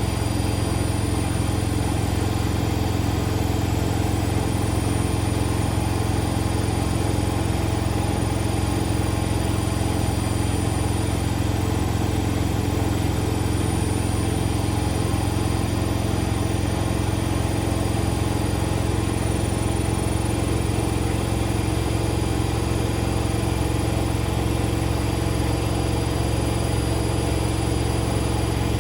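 Indesit Moon SIXL145 front-loading washing machine in its final spin, the drum turning at a steady high speed with an even motor hum and whine.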